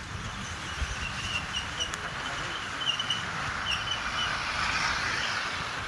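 Steady noise of a moving vehicle, a low rumble under a hiss, with a run of short high chirps from about a second to four seconds in.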